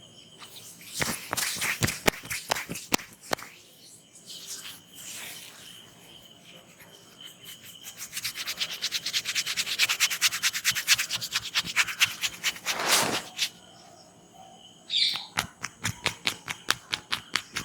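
Hands rubbing and tapping on the head and ears during an oil head and ear massage. There is a quick burst of taps early, a long run of fast rubbing strokes of several seconds in the middle, and a short string of evenly spaced taps near the end.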